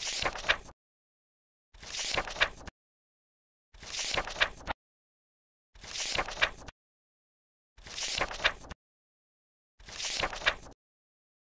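A short swishing transition sound effect, falling in pitch and ending in a couple of sharp clicks, played six times about every two seconds with dead silence between.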